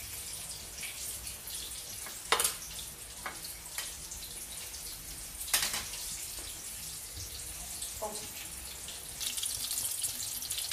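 Egg-soaked eggplant omelet with ground pork frying in hot oil in a pan: a steady high sizzle that gets louder near the end. Two sharp clinks stand out, about two seconds in and again about five and a half seconds in.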